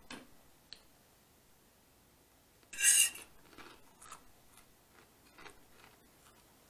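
A metal fork scraping across a plate as it scoops up salad: one loud, brief scrape about three seconds in, with a few faint clicks of the fork before and after.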